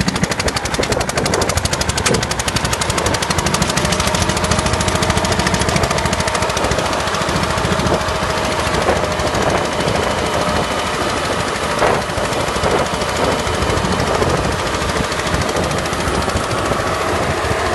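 Captain mini tractor's diesel engine running steadily under load with a rapid, even clatter, driving a PTO-powered peanut seed drill through the soil.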